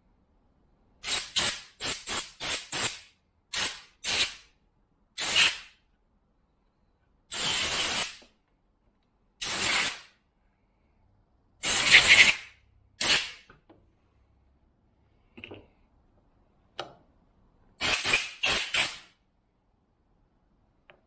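Compressed-air blow gun firing in bursts, quick puffs and a few held about a second, blowing fine milling dust out of a chainsaw air filter.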